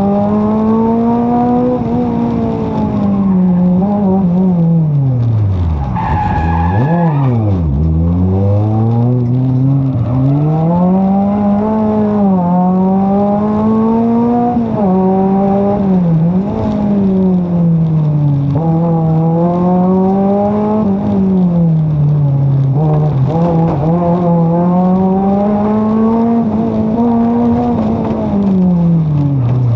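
Suzuki Swift 1.3's four-cylinder engine, heard from inside the stripped rally car's cabin, working hard with the revs rising and falling over and over as the car is driven through corners and gears. About six seconds in, the revs drop very low twice and the tyres squeal briefly.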